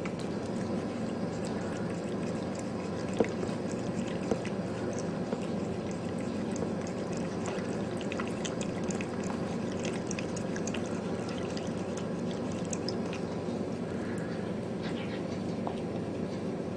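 A cat lapping water: many small quick licks and splashes over a steady rush of water.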